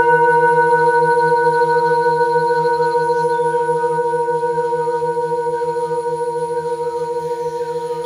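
Several Himalayan singing bowls ringing together, a fresh mallet strike on one just before adding brighter, higher tones over the deeper ones. The tones hold steady and fade slowly, with a slow, even wobble in the lower notes.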